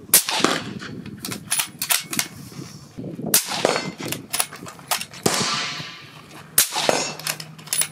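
Suppressed 6.5 Creedmoor bolt-action rifle, a Springfield Waypoint with a titanium SureFire SOCOM65-Ti suppressor, firing several shots. Each shot is a sharp crack with a trailing echo, with smaller clicks and knocks between.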